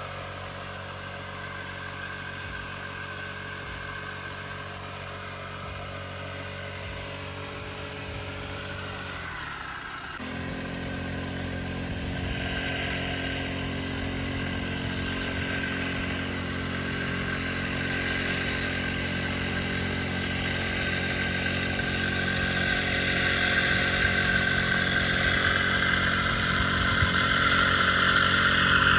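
An engine running steadily. About ten seconds in, its note sags and then settles at a higher, stronger pitch, and it grows gradually louder toward the end.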